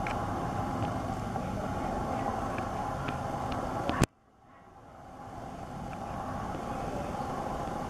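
Steady outdoor background noise. About four seconds in a sharp click cuts it off, and the sound then slowly swells back up.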